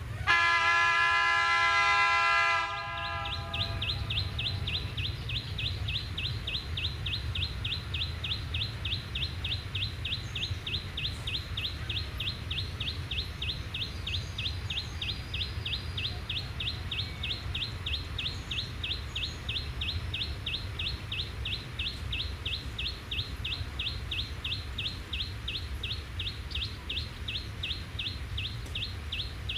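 Train horn sounding one long blast of about two and a half seconds, followed by a steady high-pitched chirping repeated about three times a second over a low rumble.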